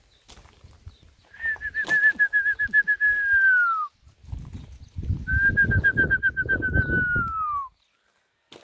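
Two loud trilled whistles, each about two and a half seconds long: a fast warble held at one pitch that slides down at the end, the second starting about a second after the first stops.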